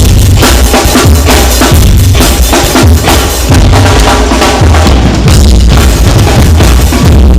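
Loud music with a driving drum kit: heavy bass drum and snare in a steady beat.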